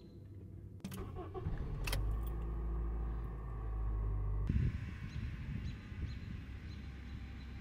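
Car door thud about two seconds in, then a Honda Civic's four-cylinder engine running at a steady fast idle just after a cold start. About four and a half seconds in the low engine hum turns thinner and quieter, and keeps idling.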